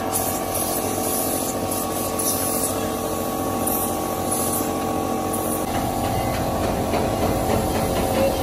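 Gravity-feed paint spray gun hissing in short bursts as paint is sprayed onto a truck cab, over a steady hum.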